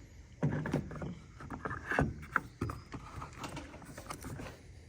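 Interior door handle assembly of a pickup's door being slid back and forth by hand: a run of small plastic and metal clicks and knocks, the sharpest about two seconds in.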